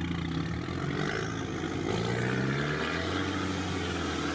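Engine of an off-road 4x4 heard from on board, running under load through mud, its pitch climbing a little about two seconds in.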